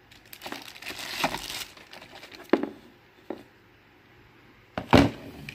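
Clear plastic packaging bag crinkling as a power adapter is unwrapped, followed by a few sharp clicks and one louder knock near the end as the adapter is handled.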